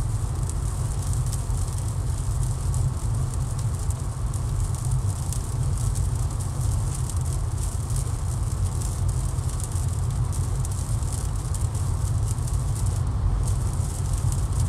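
Car cruising on a highway in the rain, heard from inside the cabin: a steady low road and engine rumble with many small raindrop ticks on the windscreen and body.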